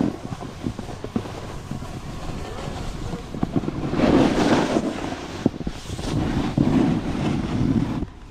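Wind buffeting an action camera's microphone while riding a snowboard downhill, with the scrape and chatter of the board over the snow. There is a louder gust about four seconds in.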